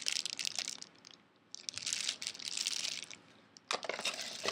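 Plastic packaging crinkling and rustling as it is handled, with a short pause about a second in and a few sharp clicks near the end.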